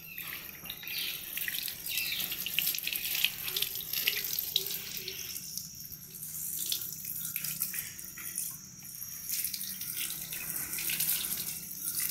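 A thin stream of running water splashing onto a brass elephant figurine and into a plastic basin, a continuous uneven hiss.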